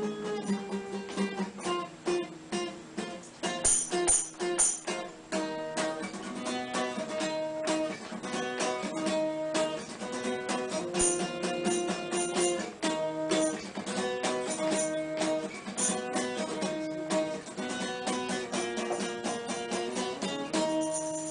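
Acoustic guitar playing an instrumental passage of a song, with plucked and strummed notes in a steady flow.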